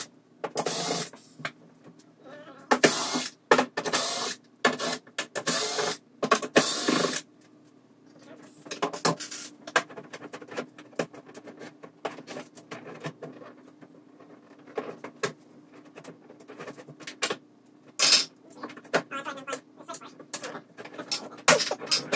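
Workbench handling and tool noise from taking apart an LED TV: several loud, noisy bursts in the first seven seconds, then a run of small clicks and rattles of screws and plastic parts.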